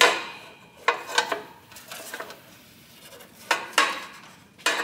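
Screwdriver clinking and scraping against metal as it pries at a tight rubber spark plug boot on a twin-cylinder Kawasaki mower engine: about half a dozen short, sharp metallic clicks, spaced unevenly.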